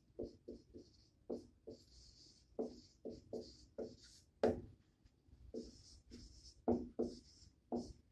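Dry-erase marker writing on a whiteboard: an irregular run of short squeaks and scratchy strokes as letters are drawn.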